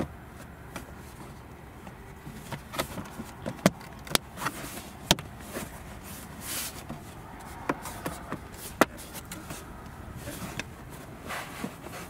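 Toyota RAV4's hard plastic rear console cover being handled and pressed into place, giving scattered sharp clicks and snaps as its clips seat. The loudest snaps come about five seconds in and again near nine seconds.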